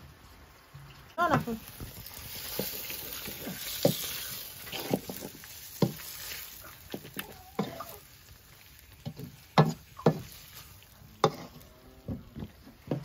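A wooden spoon stirring goat tripe in a metal wok-style pan, scraping and knocking against the pan at irregular moments. A sizzle from the hot pan swells a couple of seconds in and then fades. A brief gliding sound comes about a second in.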